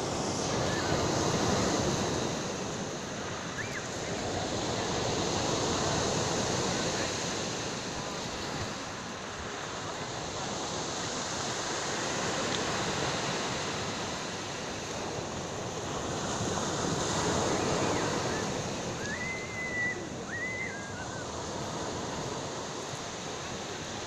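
Sea waves breaking on a pebble beach and washing up over the shingle, the surf swelling and ebbing about every five seconds.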